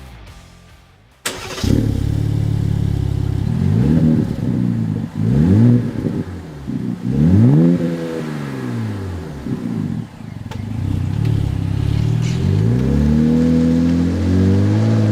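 RAM 1500's 3.0-litre twin-turbo Hurricane straight-six heard through an MBRP Street cat-back exhaust: it starts about a second in and settles to idle, is revved three times in short blips that rise and fall, then idles again and is brought up to a held higher engine speed near the end.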